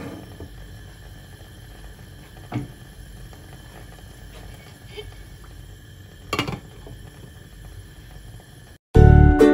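A few light knocks over faint room noise, then upbeat plucked-string background music starts abruptly near the end.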